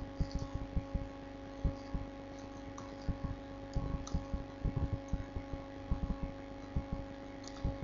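Computer keyboard typing, picked up as quick, irregular muffled key thuds, over a steady electrical hum.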